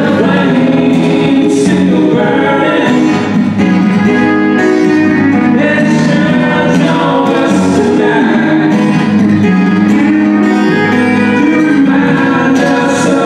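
A live song: singing with strummed acoustic guitar accompaniment.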